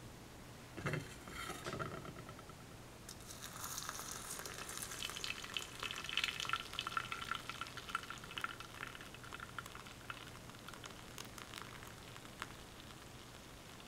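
Water poured in a stream into a glass teapot's glass infuser onto loose tea leaves. It starts about three seconds in, is loudest in the middle and tails off a few seconds before the end. Two light clinks come about a second in.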